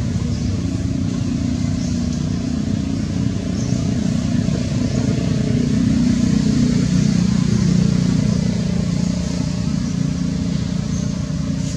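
Low, steady rumble of a motor vehicle engine running nearby, swelling a little in level about halfway through.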